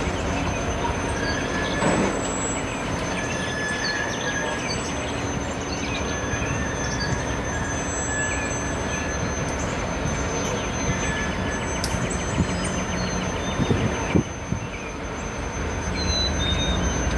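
Loaded side dump ballast gondolas rolling slowly past on the rails: a steady rumble of wheels and cars with brief high wheel squeals. There are a few sharp clanks, one about two seconds in and a cluster near the end.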